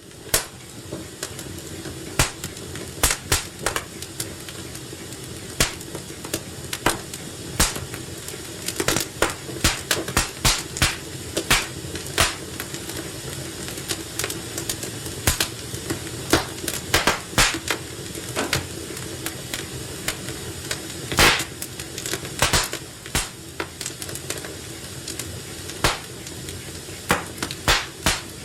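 Medium-sized fire burning steadily, with a continuous low crackle and frequent sharp pops at irregular intervals.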